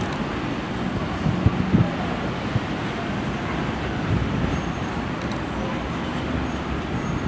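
R62A subway train running along an elevated track as it approaches, a steady noise mixed with city street traffic, with a few low knocks about a second and a half in.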